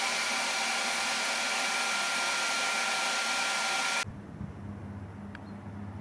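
Heat gun running: a steady rushing blow of air with a thin whine, cutting off abruptly about four seconds in, leaving a low steady hum.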